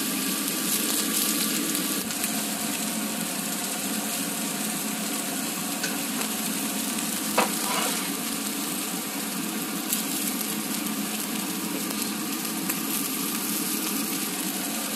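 A thick, 30-day aged top sirloin steak searing in a hot pan, sizzling steadily with a few faint crackles.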